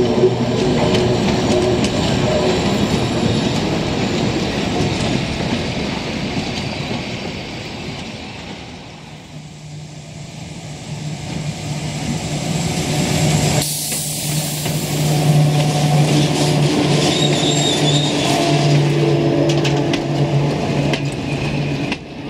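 Metre-gauge electric trains passing close by. The first, with its wheels rumbling and clattering on the rails, fades away. About halfway through, a second, hauled by a vintage electric locomotive, comes up and passes with a steady low hum under the rail noise.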